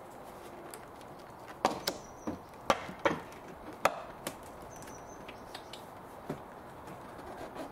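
Sharp plastic clicks and knocks from a Mercedes CLK W208's door card being pulled at by hand to free it from the door: a quick run of about eight between about one and a half and four and a half seconds in, then one more a couple of seconds later.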